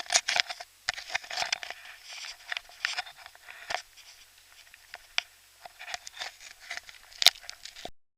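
Irregular rustling, scraping and clicking of close handling, muffled and thin through a camera's waterproof housing. The sound cuts off abruptly just before the end.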